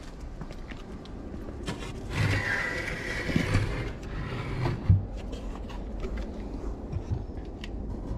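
Plywood cat house being handled and its roof lifted open: dull wooden knocks and a scraping rush lasting about two seconds, then a sharp knock near the middle and a few light clicks.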